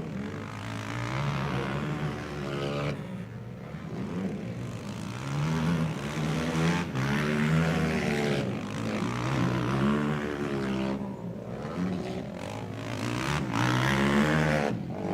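Racing quad bikes' engines revving hard, their pitch climbing and dropping again and again as the riders accelerate out of turns and shift or back off.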